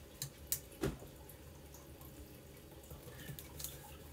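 Small metallic clicks and taps of a steel Allen key and hands on an air rifle's stock screw and tube: three sharp clicks in the first second, then a few faint ticks.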